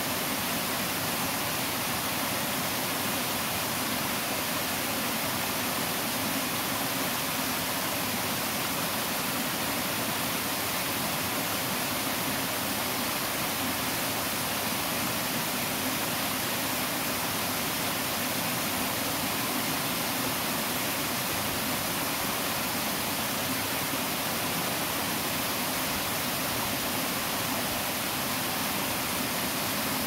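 Small waterfall on a river tributary, water splashing down two rocky cascades into a pool, making a steady, unchanging rush.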